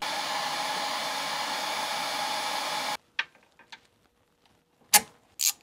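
Handheld heat gun blowing steadily with a high whine, cut off abruptly about three seconds in. A few sharp clicks of tools and hardware follow, the loudest about five seconds in.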